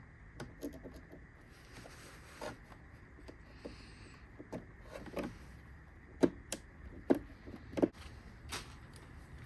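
Scattered clicks and light knocks of small plastic parts being handled and fitted, with three sharp clicks standing out in the second half.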